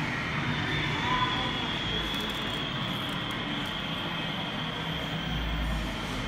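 Steady indoor background noise, an even hum and hiss with no distinct events.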